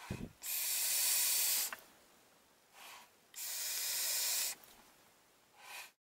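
A vaper drawing hard on a sub-ohm tank (Aspire Triton, 0.4 ohm coil at 40 W, airflow wide open) and exhaling thick clouds: two long airy hisses of about a second each, with short soft puffs between them and near the end.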